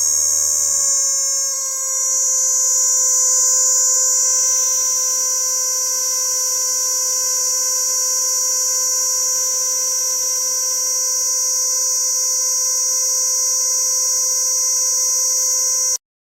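Cicada singing: a loud, steady, high-pitched buzz that cuts off abruptly near the end.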